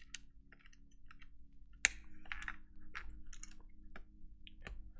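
Plastic dye-sub keycaps clicking as they are handled and pressed onto mechanical keyboard switches: a string of irregular sharp clicks, one louder about two seconds in.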